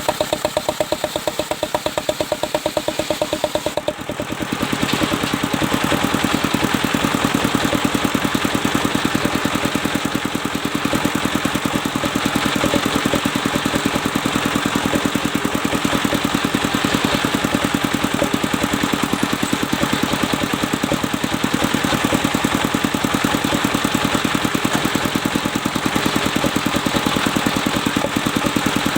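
Engine-driven circular sawmill running with a fast, even engine pulse. About four seconds in the sound grows louder and fuller as the blade cuts into the mahogany log, then holds steady through the cut.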